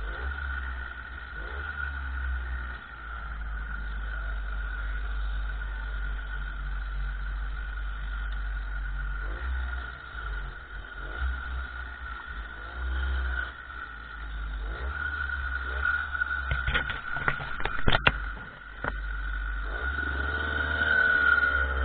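Small 50cc motorcycle running along the road, with heavy wind rumble on the microphone and a steady high whine throughout. A few sharp knocks and rattles come about three-quarters of the way through, and near the end the engine note wavers up and down.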